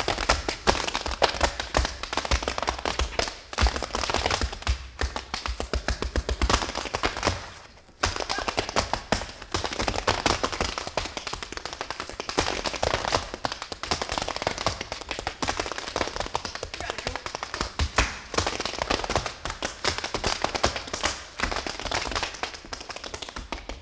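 Several tap dancers' shoes rapping out fast, dense rhythms on a wooden stage floor. The taps briefly stop about eight seconds in, then start up again.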